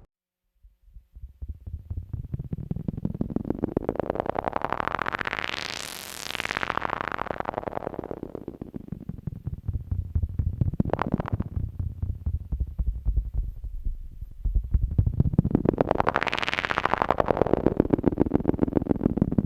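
Eurorack modular synthesizer drone from two oscillators, shaped by a joystick: a low, rapidly pulsing tone fades in, sweeps up bright around six seconds in and back down, and sweeps bright again near the end.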